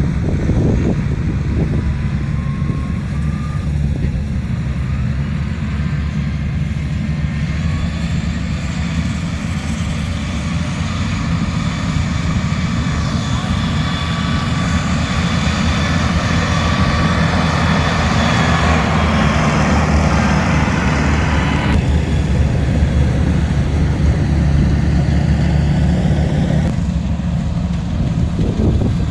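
Rice combine harvester's diesel engine running steadily. A higher rushing whir from the machine builds up and then cuts off abruptly about three-quarters of the way through.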